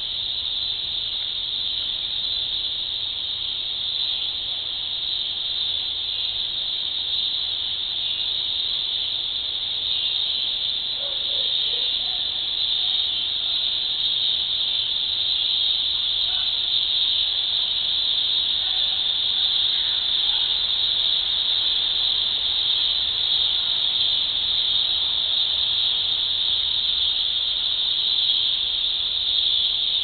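A chorus of cicadas droning, a steady, unbroken high-pitched buzz that grows slightly louder about halfway through.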